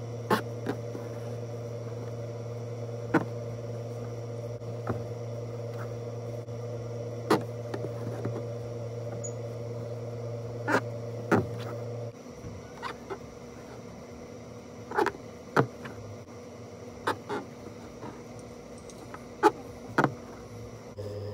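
Embroidery needle punching through taut fabric and thread drawn through it, heard as sharp short ticks every second or two. A steady low hum runs underneath, stopping about halfway through and coming back near the end.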